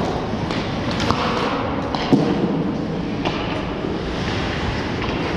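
Ice hockey game play: steady rink noise broken by several sharp clacks of sticks and puck, the loudest about two seconds in.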